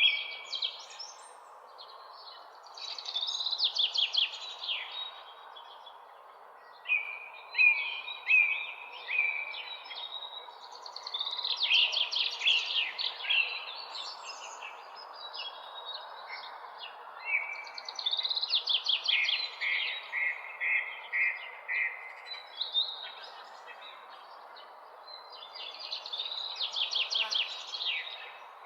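Songbirds singing in short chirping phrases that come in bursts every few seconds, over a steady background hiss.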